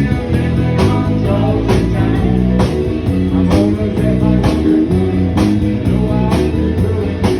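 A rock band playing: electric guitar, bass and drum kit with a steady beat, with some singing.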